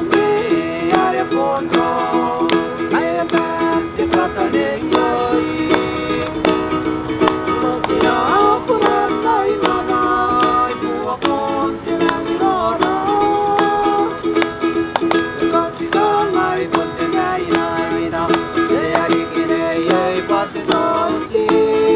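Background music led by rapidly plucked strings over a held low note.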